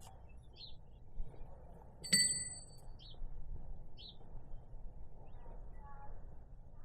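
A single bright metallic clink about two seconds in, ringing briefly, like a metal tool or part being struck or set down. Around it are a few faint short chirps over low background noise.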